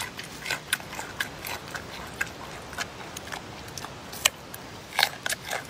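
A giant panda biting and chewing a raw carrot: irregular crisp crunches, several a second, with the loudest about four seconds in and again about five seconds in.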